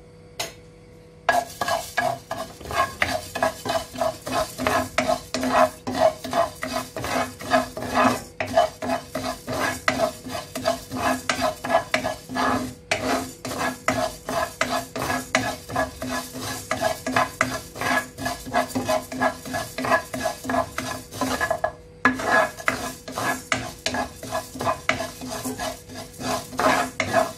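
A spatula stirring and scraping split urad dal around a dry non-stick pan as the dal is dry-roasted, in quick rhythmic strokes of about two to three a second with the grains rustling. The stirring pauses briefly twice.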